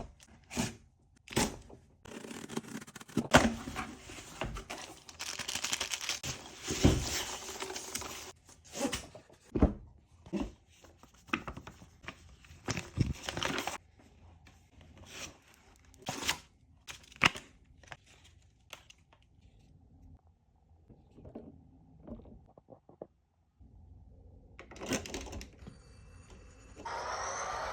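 Model train packaging being handled and opened: irregular taps and knocks, with stretches of tearing and rustling in the first half. A steady sound comes in near the end.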